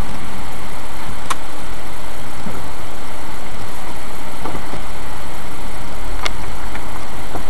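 Car engine idling with steady cabin noise, heard from inside the car through a dashcam microphone, with two sharp clicks, about a second in and about six seconds in.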